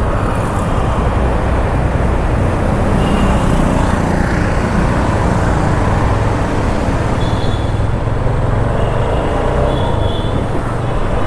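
Motorcycle being ridden on the road: its engine runs steadily under a loud rush of wind and road noise, with a few faint high tones from traffic.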